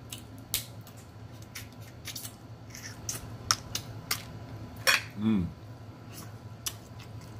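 Boiled crab leg shells being cracked and snapped apart by hand, a scattered string of sharp clicks and cracks, with one louder crack near five seconds followed by a brief vocal sound.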